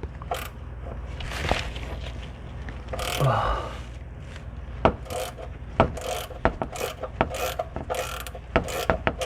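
Socket ratchet clicking as it is worked back and forth, loosening the oil-pan drain plug. Some scattered handling noise first, then a run of sharp clicks, several a second, through the second half.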